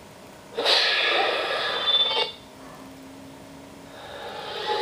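Film trailer soundtrack played through a portable DVD player's small speaker: a loud, sudden rush of noise lasting about a second and a half, then quieter, with a swelling whoosh near the end.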